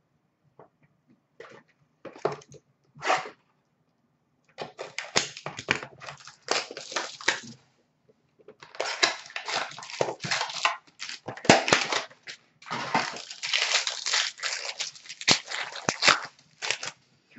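Foil trading-card pack wrapper crinkling and tearing as it is opened by hand, in irregular crackling bursts with short pauses between them.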